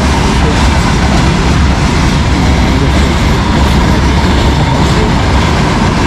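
Freight train passing at close range: a loud, steady rumble with the clatter of its wheels on the rails.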